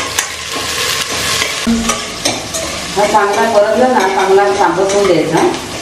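Sliced onion sizzling in hot oil in a stainless steel pot, with a steel spoon stirring and clicking against the pot. A person's voice comes in over it about halfway through.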